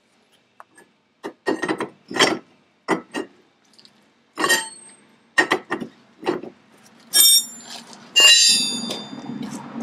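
Metal hand tools clanking: a series of short knocks and clinks of sockets and wrenches against each other and the metal hub, with two brighter ringing clinks near the end. A steady low hum starts just after the second of them.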